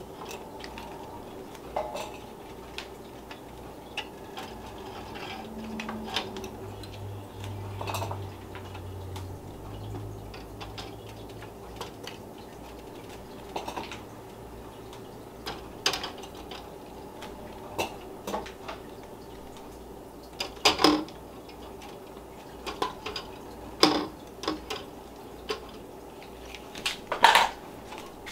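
Glass canning jars and a metal jar lifter clinking and knocking against a stainless steel water bath canner as the jars are loaded in. The clinks are scattered, a few seconds apart, and the loudest come in the last third.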